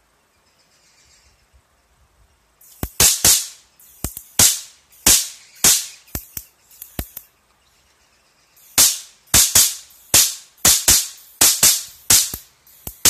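High-voltage arc from a homemade flyback-transformer stun gun, snapping across its electrodes in a run of sharp cracks, each dying away quickly. The cracks come in two clusters with a pause of about two seconds between them.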